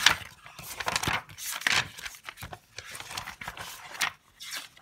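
Pages of a thick textbook being flipped through quickly: an irregular run of papery swishes and flaps.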